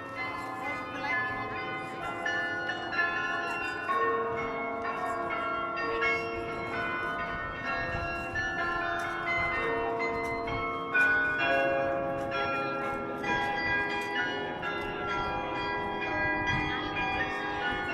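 Carillon bells playing a slow melody from a bell tower: single notes at different pitches struck one after another, each ringing on under the next.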